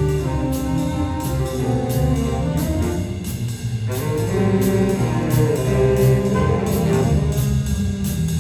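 Big band playing swing jazz: the brass section carries the melody over bass and a steady, evenly spaced cymbal beat.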